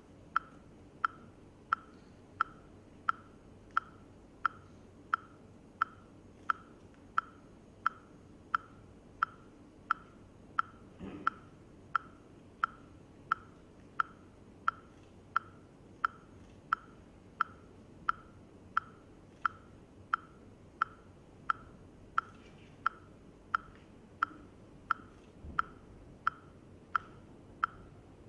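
Steady metronome-like ticking: a sharp, dry click repeating evenly about three times every two seconds over faint room noise, with a soft low thud about eleven seconds in.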